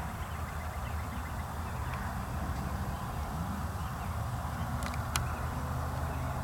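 Outdoor field ambience: a steady low rumble with faint bird calls over it and a single sharp click about five seconds in.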